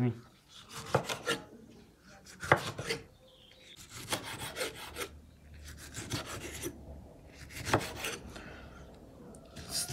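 Kitchen knife slicing a bell pepper into strips on a wooden cutting board: irregular sharp knocks of the blade striking the board, with crisp cutting and scraping sounds between them.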